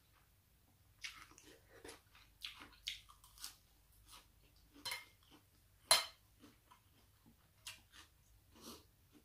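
Close-up sounds of a person eating rice noodles in curry sauce with fresh lettuce: chewing and crunching, with short wet mouth sounds and clicks. One sharper click stands out about six seconds in.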